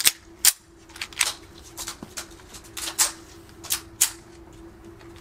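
Semi-automatic pistols being loaded and made ready: magazines seated and slides worked, a string of sharp metallic clicks, the two loudest in the first half second. A faint steady hum runs underneath.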